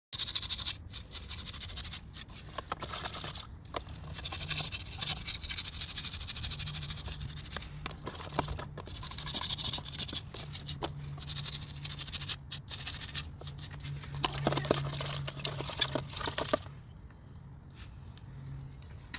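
Scrubbing and scraping on a metal part, with long hissy stretches and many sharp clicks, over a low steady hum; it goes quieter about three-quarters of the way through.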